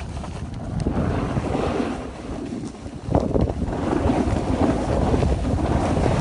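Wind buffeting a phone microphone: a loud, steady rush that swells about a second in and again about three seconds in, with snowboards scraping over packed snow.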